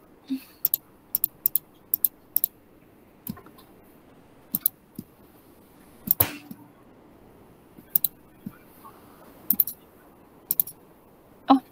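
Irregular computer mouse and keyboard clicks, about fifteen in all, single or in quick pairs, with one louder click about six seconds in.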